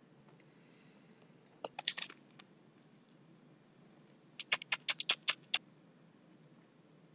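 Crisp clicks and crackles of eating a toasted Subway sub, in two short clusters: a few about two seconds in, then a quick run of about seven around the middle.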